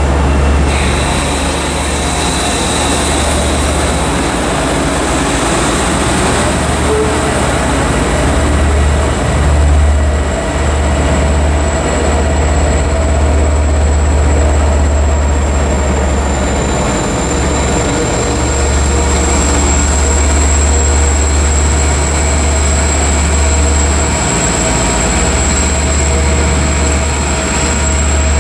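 Long Island Rail Road diesel train of bilevel coaches rolling slowly past along the platform, with a loud, steady low engine rumble from the diesel locomotive and a thin, steady high-pitched whine.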